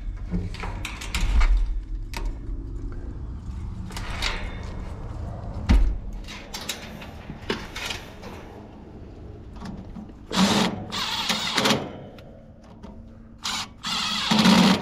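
Cordless drill running in several short bursts in the second half, after handling knocks and rustling as wires are moved about.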